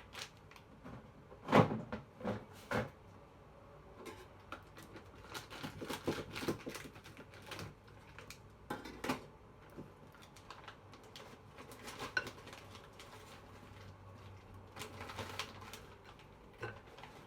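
Irregular clicks and knocks as lumps of rock sugar are tipped from a bag and clatter into a container; the loudest knock comes about one and a half seconds in.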